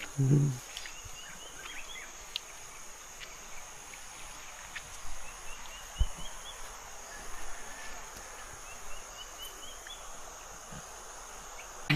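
A steady high insect drone, over which a bird calls three times, each call a quick run of short notes stepping up in pitch.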